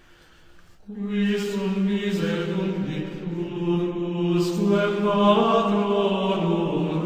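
Chanting voices start about a second in, singing long held notes that move in steps.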